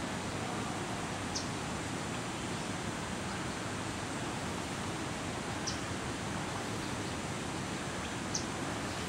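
Steady outdoor rushing noise with no clear pattern, broken by three brief high chirps spread through it.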